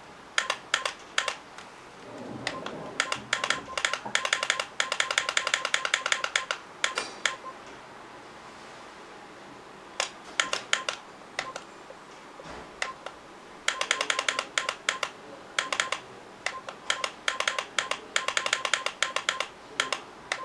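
Buttons of a LIELONGREN digital alarm clock being pressed to set the time: a few single clicks, then fast runs of clicks as the digits step forward, with pauses between the runs.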